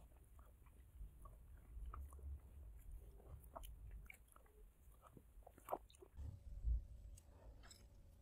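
Close-miked eating sounds of soft ice cream: quiet wet chewing and mouth noises, with light clicks of a metal spoon against the plate. There are scattered small clicks throughout and a few sharper ones about six seconds in.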